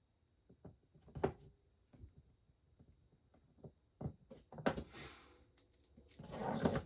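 Small clicks and taps of wire, connectors and tools being handled on a workbench, with a couple of longer hissing scrapes in the second half.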